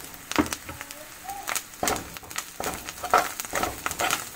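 Steel spoon stirring and scraping dry spice powders and fried onion in a frying pan of hot oil, in a series of short strokes over a light sizzle and crackle as the spices fry.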